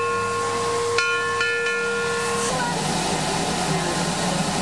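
Steam locomotive whistle sounding a chord of several notes, with a sharp bell-like strike about a second in; the whistle cuts off with a slight drop in pitch about two and a half seconds in, leaving a steady hiss.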